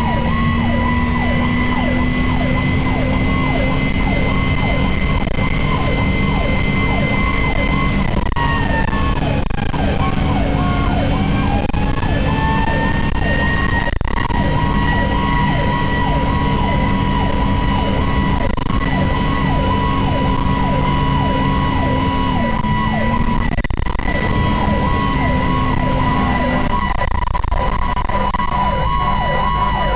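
Fire engine sirens sounding while the engine drives: a fast, repeating yelp about four times a second, under a steady high wail that sags and climbs back about ten seconds in, with engine and road noise beneath.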